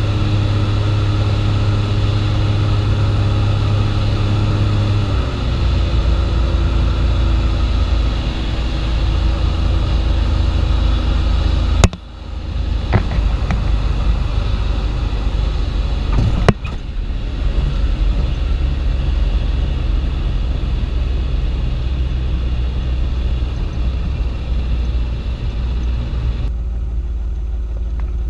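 Light aircraft piston engine droning steadily; its pitch drops a few seconds in, as when power is pulled back. Two sharp clicks come about twelve and sixteen seconds in, the first being the loudest sound, and the drone turns duller near the end.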